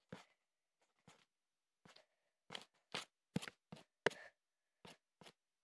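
Faint, irregular light clicks and taps from fingers tapping and handling a phone, about a dozen spread unevenly, the sharpest a little after the fourth second.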